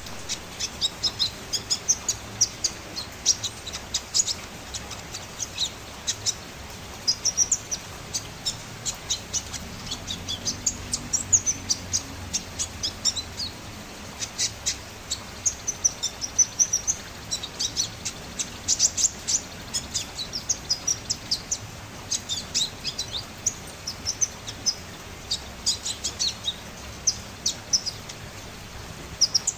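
A konin songbird chattering busily ("ngriwik"): a continuous run of quick, short high chirps and brief trills, with hardly a pause.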